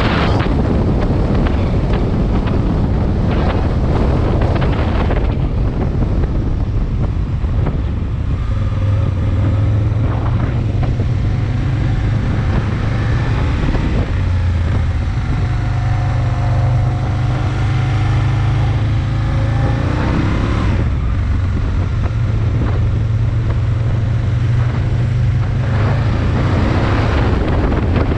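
Aprilia Tuono 1000 motorcycle's V-twin engine running under way, heard from on the bike through heavy wind noise on the microphone. The engine pitch shifts with the throttle and climbs sharply about twenty seconds in as it accelerates.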